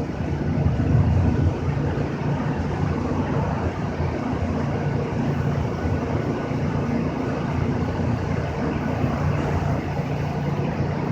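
A steady, low engine drone with an unchanging hum.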